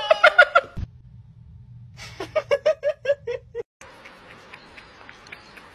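A person laughing in quick short bursts, twice: briefly at the start and again for about a second and a half from two seconds in, over a low hum. Faint background noise with small ticks follows.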